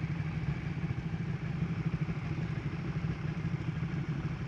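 Motorcycle engine idling steadily, a low even pulsing.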